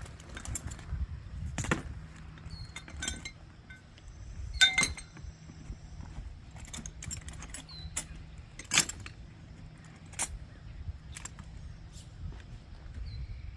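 Scattered metallic clinks and knocks, as of hand tools and metal parts being handled. The loudest is a ringing clank about four and a half seconds in, with another sharp knock near nine seconds.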